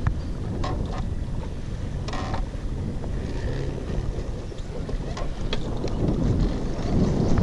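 Wind rumbling on the camera microphone, with a few light clicks and knocks from the boat and gear.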